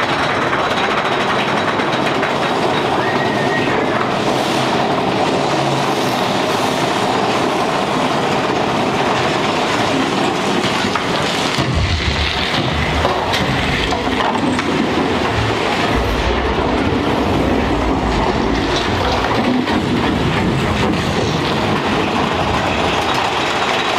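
Big Thunder Mountain Railroad mine-train roller coaster running along its track, heard from a seat in the moving train: a loud, steady noise of wheels on rails. The low rumble grows heavier about halfway through.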